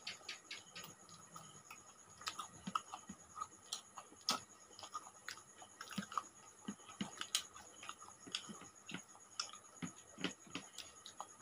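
Eating sounds: faint, irregular clicks and smacks of mouths chewing and of fingers mixing rice and curry, about two or three a second.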